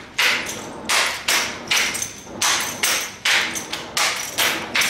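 Drill rifle being spun and caught at speed, with sharp slaps of hands on the rifle about twice a second, each with a short echo.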